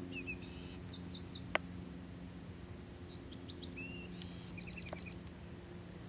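A small songbird singing two short phrases of quick high chirps, each with a buzzy note, over a low steady hum. A single sharp click about one and a half seconds in.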